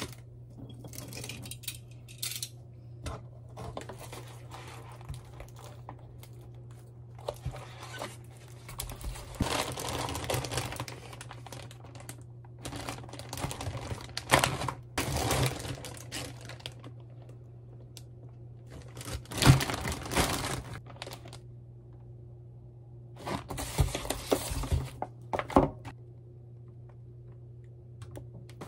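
Plastic packaging crinkling and rustling in irregular bursts as a large plastic bag and sealed food pouches are handled, with a few sharp knocks and clicks, the loudest about two-thirds of the way through. A steady low hum runs underneath.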